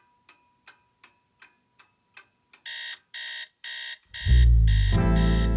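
Clock ticking about three times a second, then a digital alarm clock beeping three times. About four seconds in, the band comes in with a loud, deep bass note and guitar.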